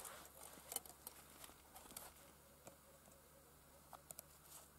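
Faint scattered small clicks and rustles of ice-fishing tackle, a tip-up and its line, being handled at the ice hole; near silence in between.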